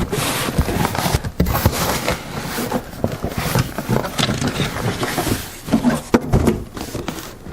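A cardboard shipping box being handled and opened, giving irregular scraping, rustling and short knocks.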